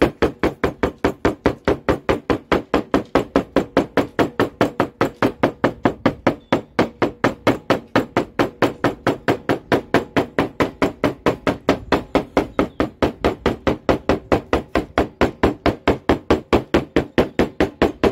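Claw hammer tapping lightly and evenly, about four to five blows a second, on the edge of the Lister B engine's metal crankcase door laid over Flexoid gasket paper: the taps cut the paper against the door's edge to make the crankcase door gasket.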